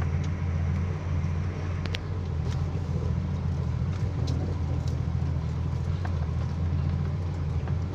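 Truck engine running with a steady low drone, with a few light clicks over it.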